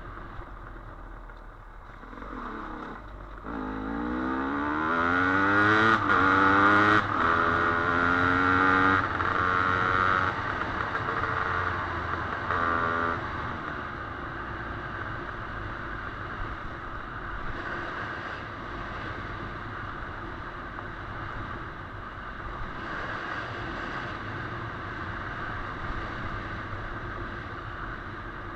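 Dirt bike engine accelerating hard up through the gears about three seconds in, its pitch climbing and dropping back at each shift several times. It then runs on steadily at lower revs.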